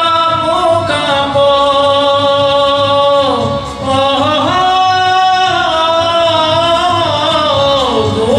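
A man singing Sindhi Sufi poetry in long held, ornamented notes. His pitch sweeps and briefly dips about three and a half seconds in and again near the end, over a low pulsing accompaniment.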